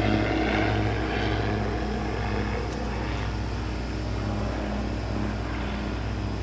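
A small engine or motor running steadily: a low hum with a faint regular pulse, about two beats a second.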